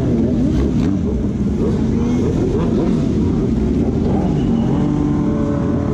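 Sport motorcycles riding past at close range, their engines revving up and down, with one holding a steady note near the end.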